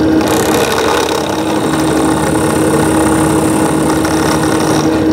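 Benchtop drill press running, its Forstner bit boring into walnut: a steady motor hum with the rough noise of the bit cutting wood.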